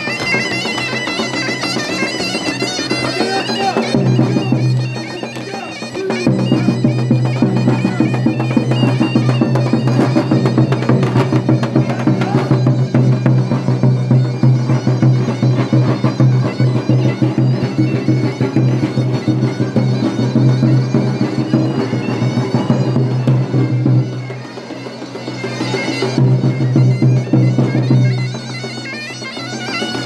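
Zurna playing a fast horon dance tune with a davul drum beating steadily, over a steady low drone. The music dips briefly twice.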